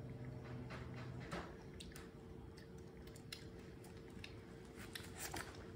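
Faint, scattered wet clicks and squishes of a baby monkey chewing fruit and of fingers peeling small fruit.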